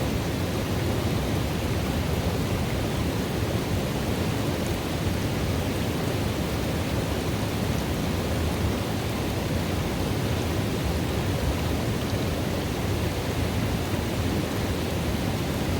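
Running water in a river pool, a steady deep rushing flow without breaks.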